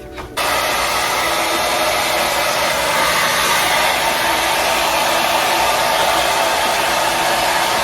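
Handheld hair dryer blowing steadily, switched on about half a second in.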